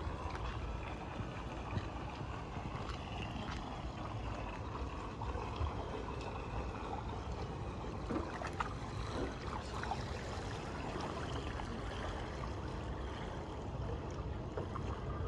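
Steady rushing and trickling of water, with a low rumble and faint voices in the background.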